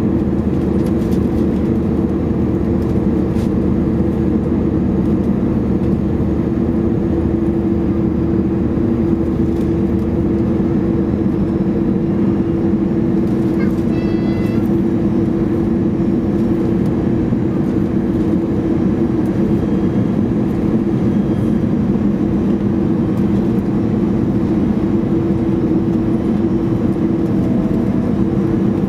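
Airbus A319 cabin noise from a seat over the wing on final approach: a steady drone of jet engines and rushing air with a constant hum. A brief high tone sounds about halfway through.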